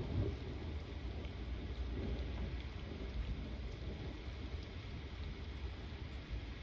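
Steady rain falling during a thunderstorm, with a low rumble of thunder underneath that swells briefly at the very start.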